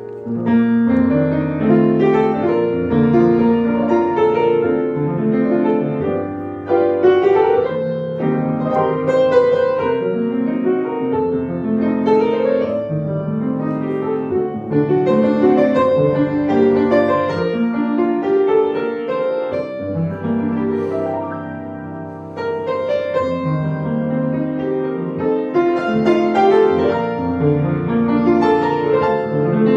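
Solo grand piano playing a hymn arrangement in full chords over a bass line, softening briefly about two-thirds of the way through before building again.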